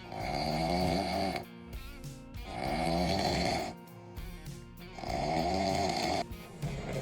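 A man snoring in his sleep: three long, rasping snores, each about a second and a half, coming every two and a half seconds or so.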